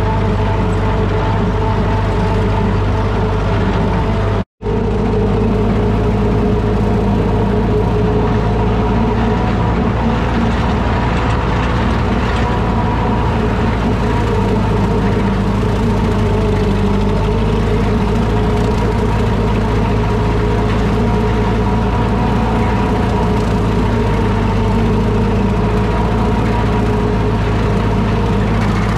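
1952 Ford 8N tractor's four-cylinder flathead engine running steadily under load, turning a rotary cutter through dry broom sage. The sound cuts out for an instant about four and a half seconds in.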